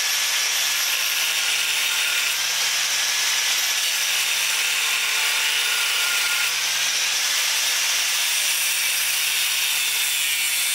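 Angle grinder cutting through a Honda Ruckus scooter's metal handlebar tube, a steady high grinding noise at an even pitch.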